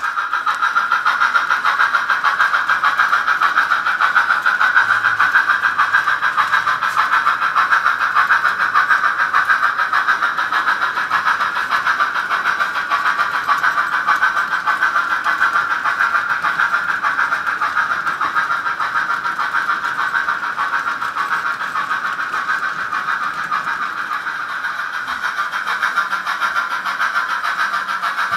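Model train of a B&O EM-1 steam locomotive pulling a long string of hopper cars, running steadily around the layout's track with an even, continuous running noise.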